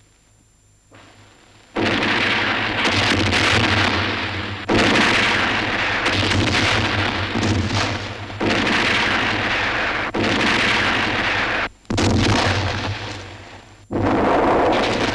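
A rapid series of about six heavy explosions from shelling or bombardment, each starting suddenly and rumbling away before the next. They begin after a short hush.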